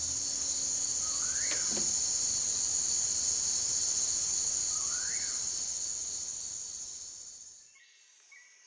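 Steady high-pitched chorus of jungle insects, with a short rising-and-falling call heard twice. It fades out over the last couple of seconds.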